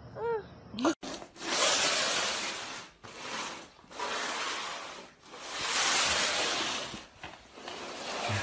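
Slow, repeated rubbing or scraping strokes, about four long strokes each lasting a second and a half to two seconds.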